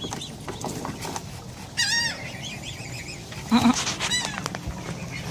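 Swans calling: high, wavering calls about two seconds in and again about four seconds in, with a louder short call just before the second.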